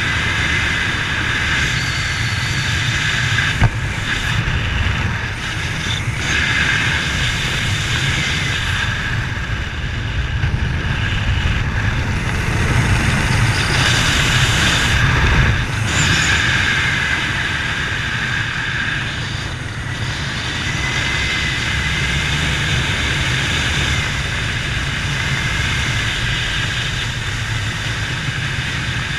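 Steady vehicle running noise: a low rumble with a faint wavering whine above it, and a single sharp click about three and a half seconds in.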